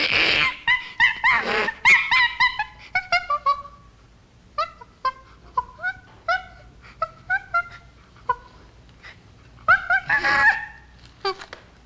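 Chimpanzee screaming and whimpering. Harsh screams at the start and again about ten seconds in, with a run of short, high calls in between, several of them falling in pitch.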